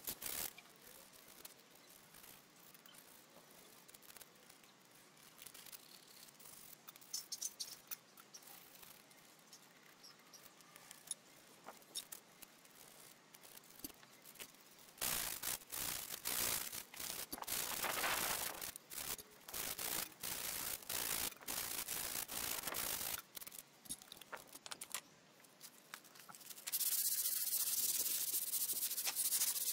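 Hand sanding of a painted cast-iron bench end with sandpaper, rubbing down flaky old paint. Light scattered scrapes and taps at first, then about halfway through a run of quick back-and-forth rubbing strokes, and near the end a steady, louder sanding hiss.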